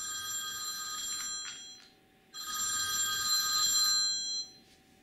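Telephone ringing twice. Each ring lasts about two seconds, with a short pause between them.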